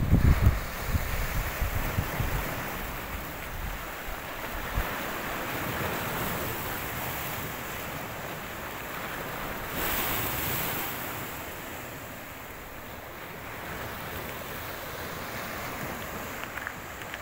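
Sea waves washing against a rocky shore, a steady rushing with a louder swell about ten seconds in. Wind buffets the microphone in heavy gusts during the first two seconds.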